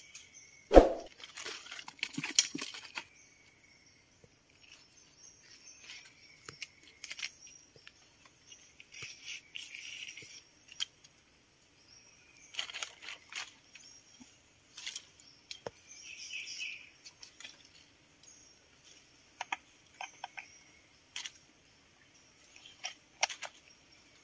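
Scattered rustles and small clicks of fishing line and hook being handled close to the microphone, with one sharp thump about a second in. Faint chirps and a thin steady high tone sit in the background for the first half.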